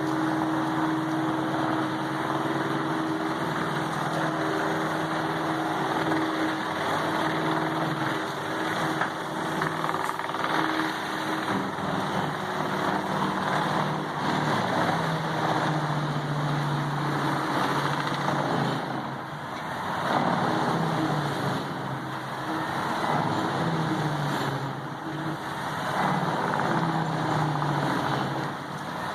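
Vermeer HG6800TX horizontal wood grinder at work: its large diesel engine drones steadily under load beneath a dense grinding and shredding noise as logs are fed in. The level dips briefly twice in the second half.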